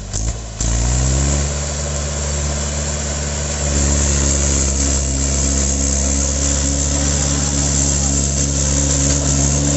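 Mahindra 575 DI tractor's four-cylinder diesel engine revving up about a second in, then running hard and steady as it hauls a heavily loaded sugarcane trolley, growing louder about four seconds in.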